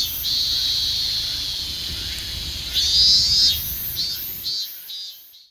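Insects calling: a high buzz that pulses about twice a second, runs into a long steady stretch, swells again about three seconds in, then pulses once more and fades away, over a low steady rumble.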